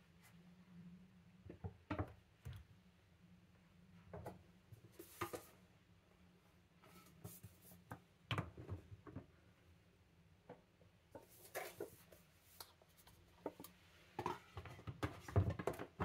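Scattered light knocks and clatter as a plastic shelf riser is set on a stone countertop and metal storage canisters are placed on it, the busiest knocking near the end, over a faint low hum.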